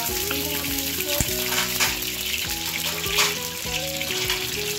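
Whole peeled potatoes sizzling steadily in hot oil in a kadhai, with a few sharp knocks of a metal spoon against the pan as they are turned.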